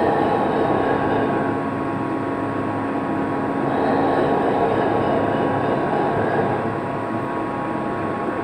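Tugboat's diesel engines running steadily under a rushing noise that swells and fades twice.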